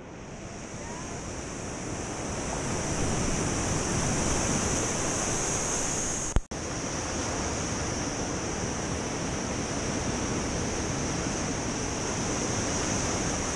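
Ocean surf washing up a sandy beach, a steady rushing hiss of whitewater that swells over the first few seconds. It drops out for an instant with a click about six seconds in.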